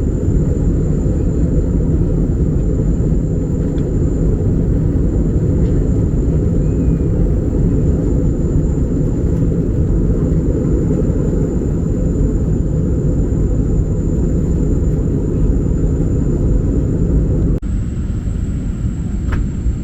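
Airbus A321-200 cabin noise in flight: a steady, loud rumble of engines and airflow, with a thin high whine above it. The sound dips and changes slightly at a cut near the end, then carries on.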